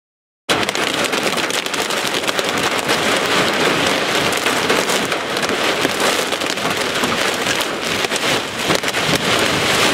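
Hail and heavy rain driven by a microburst's strong winds, pelting a vehicle's windshield and body, heard from inside the car as a loud, dense mass of hits. It starts suddenly about half a second in and holds steady.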